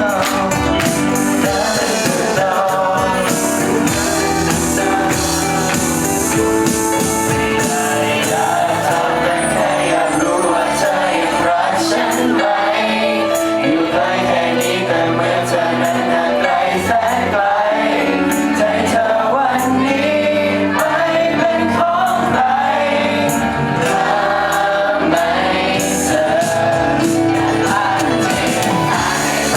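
A song sung over instrumental accompaniment, with the voice carrying the melody.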